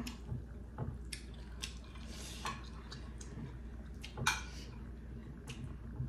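Eating sounds at a table: chewing and mouth sounds, fingers working food on a plate, and a spoon tapping and scraping a ceramic plate in short clicks, with one louder click about four seconds in.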